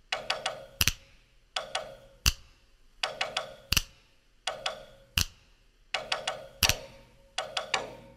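A sparse percussive beat: a repeating pattern of three light dry clicks and a sharper click, about every second and a half, over a faint held tone.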